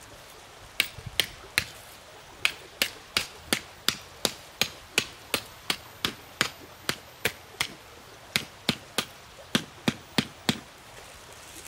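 A tool striking something hard over and over: about 26 sharp knocks at roughly three a second, in runs broken by two short pauses.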